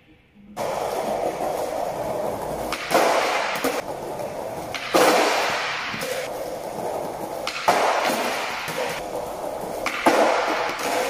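Background music with a repeating pattern, starting about half a second in and surging afresh every two to three seconds.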